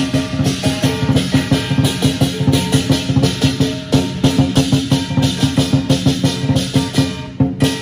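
Live lion dance percussion: a large Chinese lion dance drum beating rapid strokes, with cymbals and a gong ringing over it. There is a brief break near the end.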